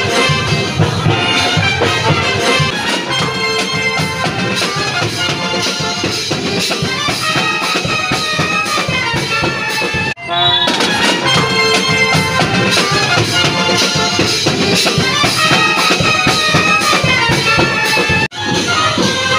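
Music with a steady beat, cut off briefly twice: about ten seconds in and again near the end.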